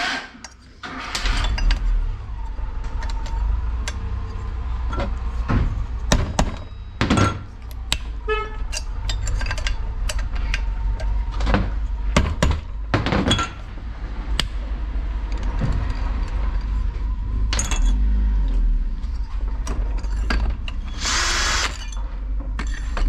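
Hand tools and metal parts knocking and clicking as a two-stroke brush cutter engine is taken apart. A short run of quick ticks comes about eight seconds in, and a power drill-driver whirs briefly twice near the end.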